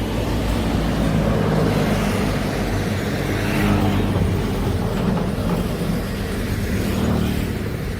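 Heavy diesel construction machinery running with a steady low engine rumble that swells slightly a few times.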